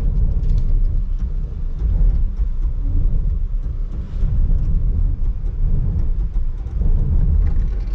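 Steady low rumble of a Jeep Grand Cherokee 4xe labouring up a loose sand-and-mud slope in four-wheel low, its tires failing to find grip.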